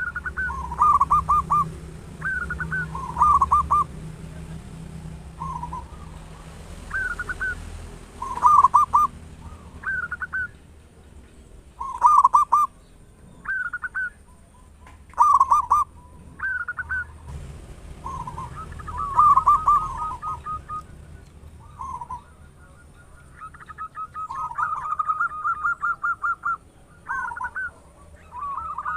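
Zebra dove (perkutut) cooing: short staccato coo phrases repeated every second or two, with a quicker run of repeated notes in the last few seconds.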